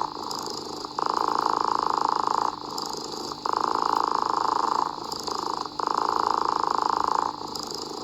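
Domestic cat purring, the purr alternating between louder stretches of about a second and a half and softer ones of under a second in a regular cycle.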